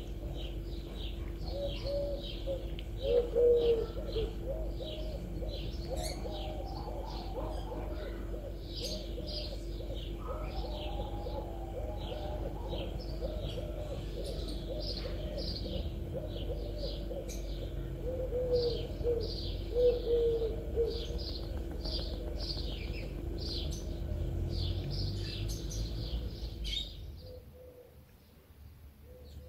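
Small birds chirping in quick, dense runs, with repeated low cooing underneath. The birdsong drops away near the end, leaving only a faint coo.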